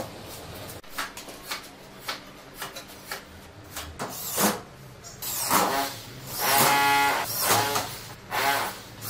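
Cordless drill driver sinking drywall screws through gypsum board into the ceiling framing: several short whirring runs of the motor in the second half, the longest lasting about a second and a half. Before them come scattered light knocks and taps of the board being handled.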